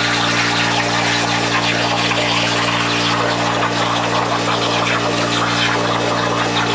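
Plasma cutter torch cutting 16-gauge steel sheet on a CNC plasma table: a steady hiss of the arc and air, with a low steady hum underneath.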